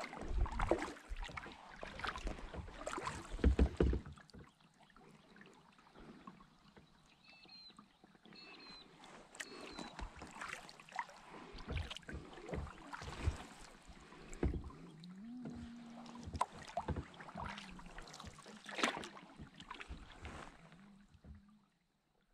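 Kayak paddle strokes: the blade dipping and splashing in calm water with drips between strokes, heavier low thumps in the first few seconds.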